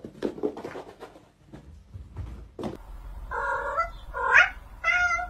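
Domestic cat meowing: three long, drawn-out meows in the second half, the middle one rising in pitch, after a run of light taps and knocks.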